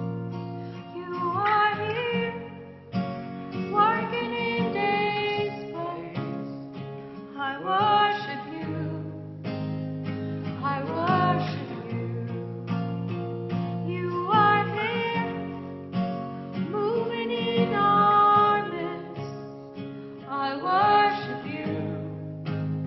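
Strummed acoustic guitar accompanying a sung worship song.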